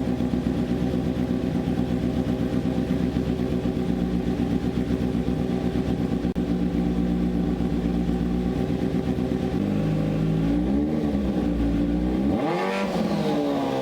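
Kawasaki Z900 inline-four running at a steady idle through SC Project steel headers and silencer with the dB killer removed. Near the end it is revved a few times, the pitch rising and falling with each blip, the biggest about a second before the end.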